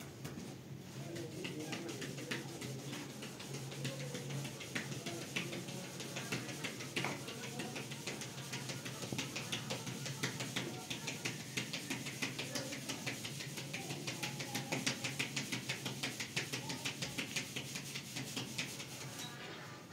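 Rapid, steady series of light taps or strikes, about three a second, growing more regular in the second half.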